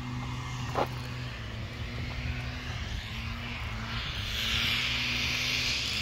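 Road traffic: a steady low engine hum, with a rushing hiss that swells louder about four seconds in.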